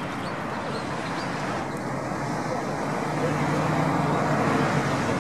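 A vehicle engine running nearby, getting louder for a couple of seconds past the middle, over outdoor background chatter.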